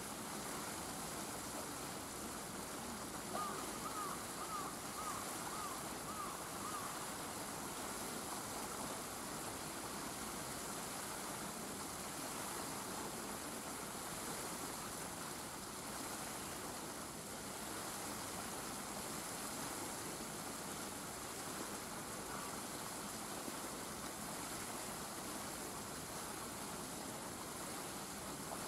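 Steady outdoor background hiss, with a short run of about seven quick high chirps a few seconds in.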